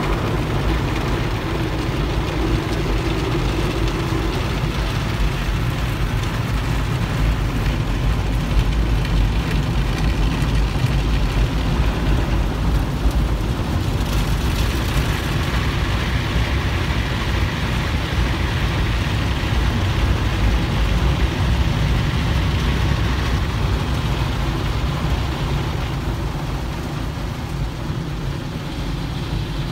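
Automatic car wash heard from inside the car's cabin: a steady rush of water spraying over the windshield and body, over a continuous low rumble. It eases off slightly near the end.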